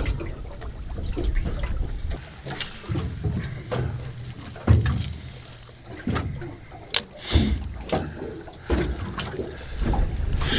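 Small waves lapping and slapping against a small boat's hull, with an irregular low rumble of wind on the microphone that comes and goes.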